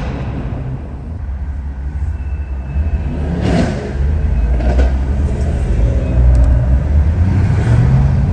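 Stage 2 BMW M140i's B58 3.0-litre turbocharged straight-six running through a custom exhaust: a low rumble that grows louder about three seconds in, with a few short sharp cracks.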